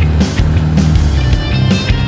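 Background music with a steady beat: a bass line moving between held notes under regular drum hits.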